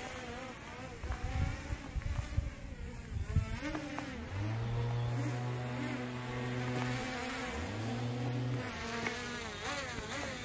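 ZMR250 carbon-frame racing quadcopter flying overhead: the buzzing whine of its motors and propellers, rising and falling in pitch as the throttle changes, steadier for a few seconds in the middle.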